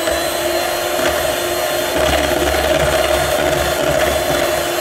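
Electric hand mixer running steadily, its beaters creaming butter, cream cheese and icing sugar into frosting in a steel bowl.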